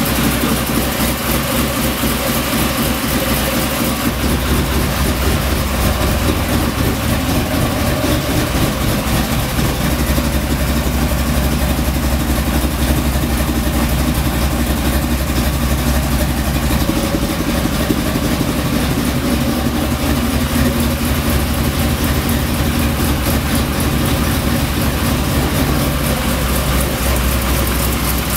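Small-block Chevy 350 V8 in a VW Beetle idling steadily.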